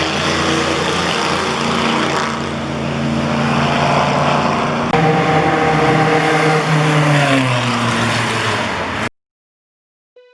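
Track car engines running hard at high revs in two spliced clips. After a cut about five seconds in, the engine note falls as the car lifts off and slows. The sound cuts off abruptly about nine seconds in.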